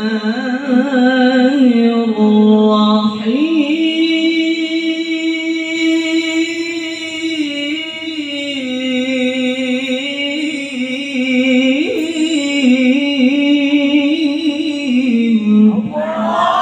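Man reciting the Qur'an in the melodic mujawwad style, amplified through a hand microphone: a single voice holding long, wavering notes with quick ornaments, one held note several seconds long in the middle. At the very end the listeners call out together in response.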